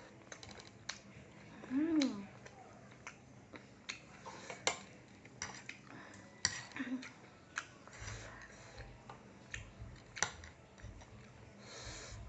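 Eating sounds: utensils clicking against a bowl in scattered sharp clicks, with chewing. About two seconds in, the eater gives a loud, short hum that rises and falls in pitch, and there is a brief hiss near the end.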